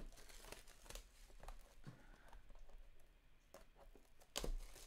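Clear plastic shrink wrap crinkling and tearing as it is pulled off a trading card box, in scattered crackles with a louder rustle about four and a half seconds in.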